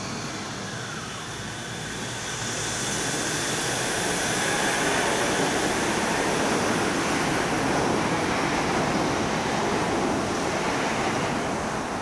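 Shonan Monorail 5000-series suspended monorail train pulling out and passing close by. Its running noise swells over the first few seconds into a steady rush with a faint high whine, then eases slightly near the end as it moves away.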